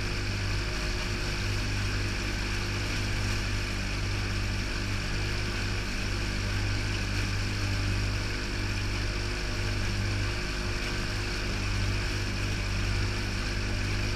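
Outboard motor running steadily under way, a constant low hum over a steady rush of water and wind noise.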